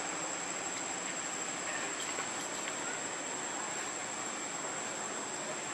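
Insects droning in a steady chorus, one constant high whine over an even background hiss.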